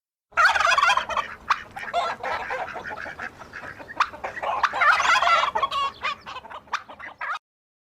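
Turkey gobbling: a long run of rapid, warbling gobbles that stops about seven seconds in.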